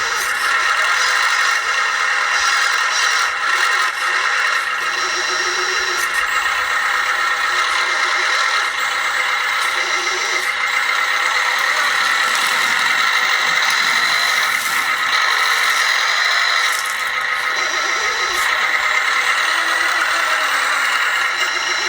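Small electric motors and gearing of 1/14-scale RC construction machines whining steadily, with rattling and scraping of moving parts.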